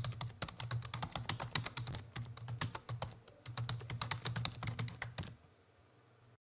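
Computer keyboard typing: a fast run of keystroke clicks with a couple of short pauses, stopping about five seconds in.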